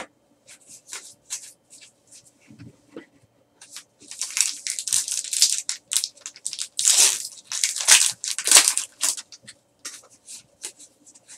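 A foil trading-card pack wrapper being torn open by hand: a run of crinkling rips, loudest about two-thirds of the way in. Before it come light clicks and rustles of cards being handled.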